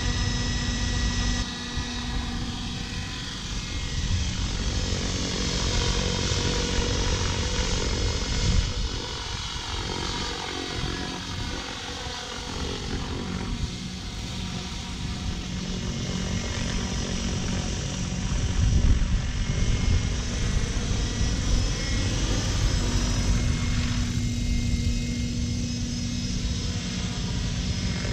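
Radio-controlled model helicopter in flight, its motor and rotor blades making a steady buzzing tone with several overtones whose pitch slides up and down as it manoeuvres and passes.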